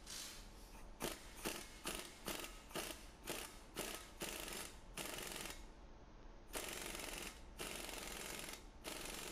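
Hand ratchet turning the forcing screw of a wheel bearing press, a short rasp two or three times a second. Then an air impact wrench drives the screw in three long bursts, pressing the new front wheel bearing into the steering knuckle.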